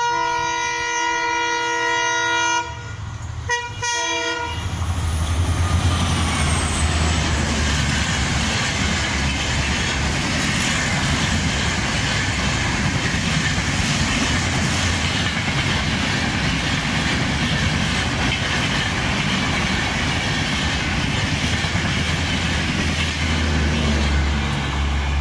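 Indian Railways locomotive horn sounding one long chord-like blast of about two and a half seconds, then two short toots. From about four and a half seconds in, a train runs by with steady wheel-and-rail noise over a low rumble.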